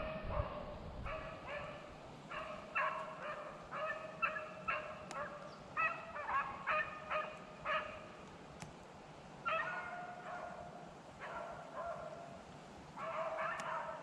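Rabbit beagles baying in bursts of short yelps and a few longer drawn-out notes, several voices overlapping: the pack giving tongue as it runs a rabbit's trail.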